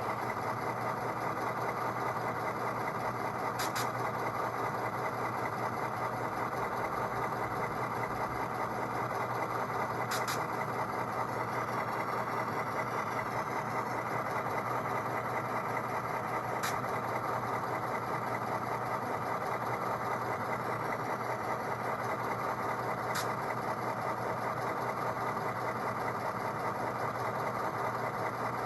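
Sound decoder in an HO-scale Auscision Models B-class model diesel locomotive playing a steady diesel engine idle through its small speaker. Four faint clicks come at even spacing, about every six and a half seconds.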